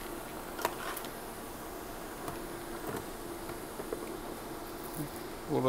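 A faint steady electrical buzz, with a few light clicks as a red charger clamp is handled and clipped onto the car's positive jump-start terminal.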